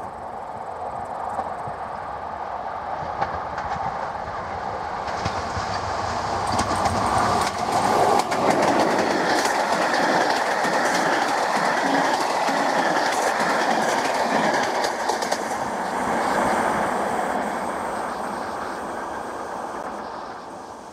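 Electric-hauled passenger train passing close by. The rumble grows as it approaches, then the wheels clatter and click over the rail joints as the coaches go past, and the sound fades away near the end.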